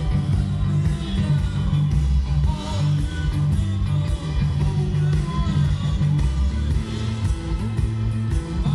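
A band playing live: guitar over heavy bass and drums, the low end loudest.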